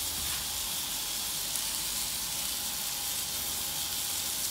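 Meat-free burgers frying in a pan: a steady sizzling hiss.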